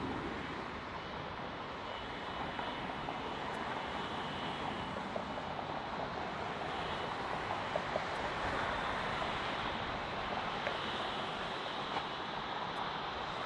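Twin jet engines of an Airbus A330 at taxi power, a steady rush with a faint high whine.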